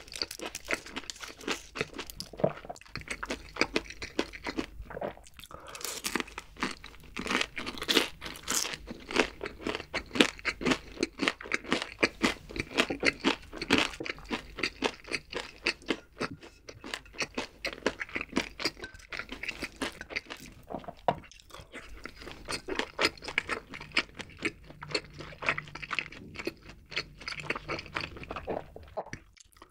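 Close-miked chewing of crunchy deep-fried chicken feet: a dense run of rapid crunches with short pauses, dropping off briefly just before the end.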